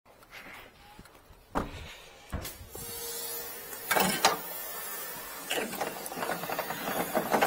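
Latch clicks, then knocks and rattling clunks as a work truck's door and the side gate of its bed are opened and handled. A steady hiss comes in about three seconds in.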